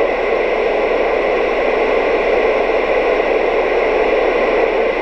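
CB radio receiver hiss from a small extension speaker: steady static with the squelch open and no station coming through on the channel.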